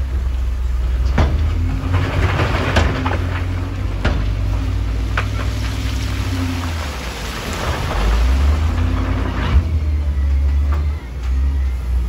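Wheel loader's diesel engine running under load as it pushes into a heap of crushed stone, with the rock crunching and clattering from about two seconds in until near the end, broken by several sharp knocks.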